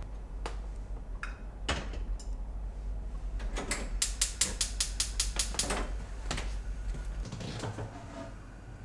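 A glass kettle knocks down onto a gas stove's grate, then about four seconds in the burner's igniter clicks rapidly, about a dozen clicks in under two seconds as the gas is lit.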